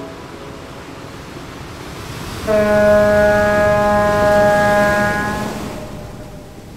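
A ship's horn blows one long, steady, deep note for about three seconds, starting about two and a half seconds in and fading out, over a rushing whoosh like wind and surf.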